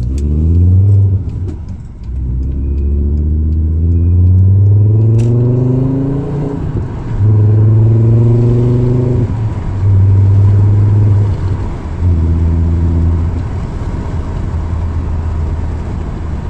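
Engine revved repeatedly: its pitch climbs steadily for about four seconds, drops, then rises and holds in three shorter revs before settling to a steady lower running note. A sharp click is heard about five seconds in.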